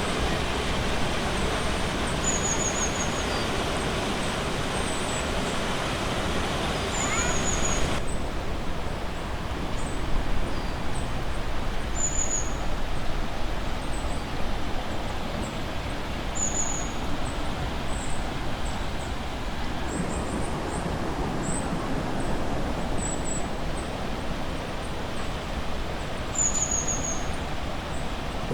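Steady rushing of river water over rapids, changing abruptly twice, with a bird giving a short, high, falling call every few seconds.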